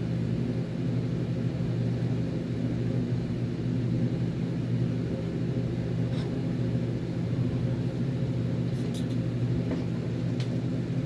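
Steady low mechanical hum, with a few faint clicks from about six seconds in.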